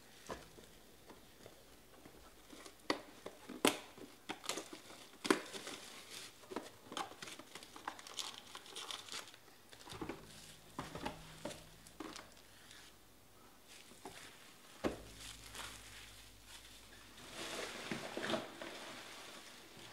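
Clear plastic wrapping being crumpled and torn by hand: a run of sharp, irregular crinkles and crackles, thickest near the end.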